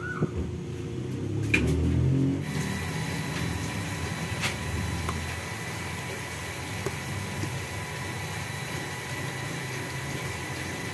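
Steady rushing background noise with faint thin tones. It is a little louder in the first couple of seconds, with low rustling and a couple of light clicks as the cardboard parts are handled.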